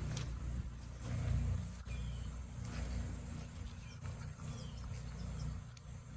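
Wind buffeting the microphone: a low rumble that swells and eases in gusts, with a few light clicks.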